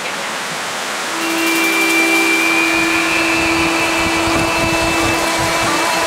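Steady rush of water running over rock. About a second in, music begins with long held notes and lies over the water noise.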